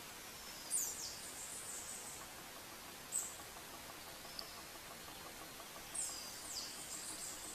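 Songbird calling: two high, thin downward-sweeping calls about five seconds apart, each trailing into a brief buzzy twitter, with a single short chip between them, over steady outdoor hiss.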